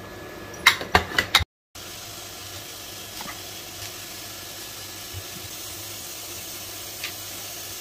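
A few sharp clinks and knocks of metal cookware, then, after an abrupt cut, a steady faint hiss with a low hum underneath.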